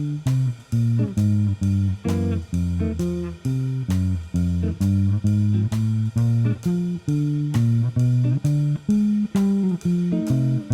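Outro music: a walking-bass blues on guitar in F, with a steady run of plucked bass notes at about three a second.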